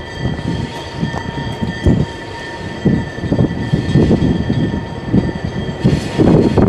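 Freight train rolling past, its wheels and cars knocking and clanking irregularly under a steady high-pitched ringing tone. It grows louder about six seconds in.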